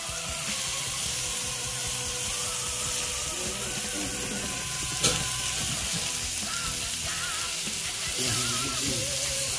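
Sliced mushrooms sizzling in hot olive oil in a cast-iron skillet, with one sharp click about five seconds in and a fork stirring them near the end. Music plays underneath.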